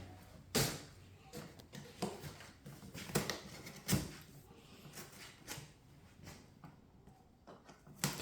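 Scattered knocks, clicks and rustles of packaging being handled during an unboxing, with sharper knocks about half a second in and again around three and four seconds.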